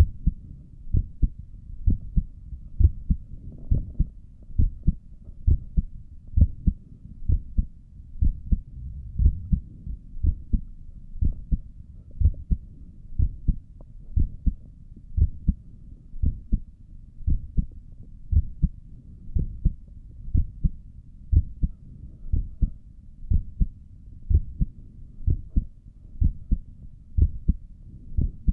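A person's resting heartbeat heard through a stethoscope: regular lub-dub pairs of low, dull thumps in a steady rhythm.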